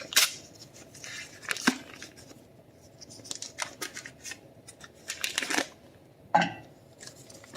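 Paper rustling and tearing with a few light clicks and knocks, as a stick of butter's wrapper is peeled off and the butter goes into a saucepan.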